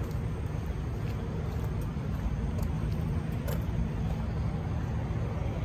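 Cadillac Escalade-V's supercharged 6.2-litre V8 idling steadily through a straight-piped exhaust, a low, even rumble.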